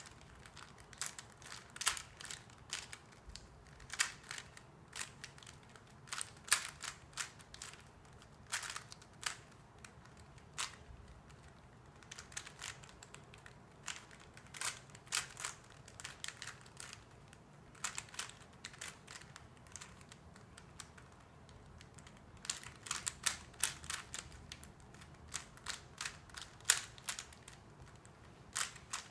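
Plastic 3x3 Rubik's cube being turned by hand, its layers clicking irregularly in quick flurries with short pauses between, the densest run of turns near the end.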